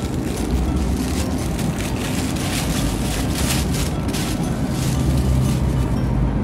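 Steady low rumble of supermarket background noise and a handheld phone microphone being moved about. A thin plastic produce bag rustles and crackles faintly through the middle.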